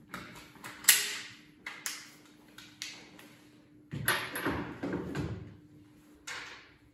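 Sharp clicks and knocks of hard rifle parts being handled, the loudest about a second in, with a rougher scraping rattle from about four to five and a half seconds in and one more knock near the end.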